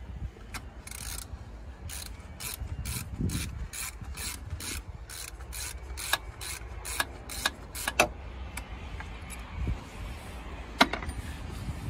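Hand ratchet clicking in quick, even strokes, about three a second, while it turns out the internal-Torx bolt holding the turbocharger. The clicking stops about eight seconds in, and a couple of sharper clicks follow near the end.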